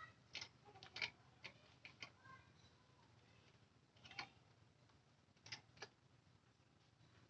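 Faint, scattered light clicks and taps, unevenly spaced, over quiet room tone, with the sharpest ones about a second in and about four seconds in.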